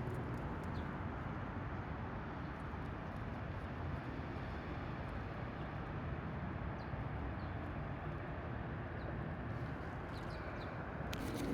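Steady low background hum and hiss, with a few faint high chirps scattered through it and a cluster of sharp clicks near the end.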